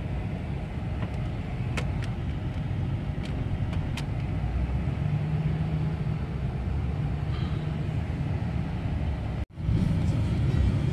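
Steady engine and road rumble heard from inside a pickup truck's cab while it drives slowly over snowy streets, with a few faint ticks. The sound cuts out for a moment near the end and comes back slightly louder.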